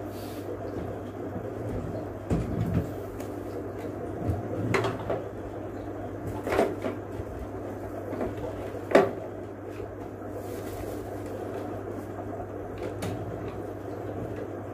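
Fish containers being handled: a handful of separate knocks and clunks, the sharpest one about nine seconds in, over a steady low hum.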